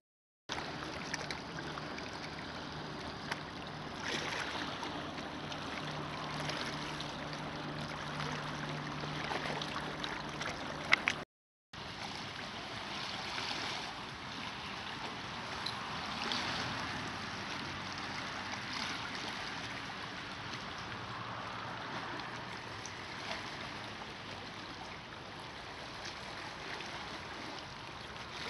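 Small lake waves lapping and splashing on a rocky shore, heard as a steady wash. A low steady hum runs under the first part and stops at a short silent break about eleven seconds in.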